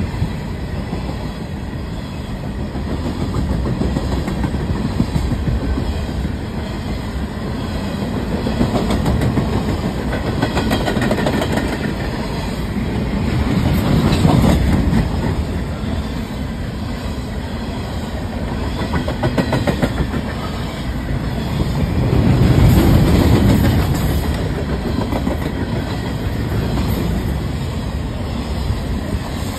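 Covered hopper cars of a Canadian Pacific freight train rolling past close by: a steady rumble of steel wheels on the rails with rapid clicking over the rail joints. It swells louder twice, about halfway through and about three quarters through.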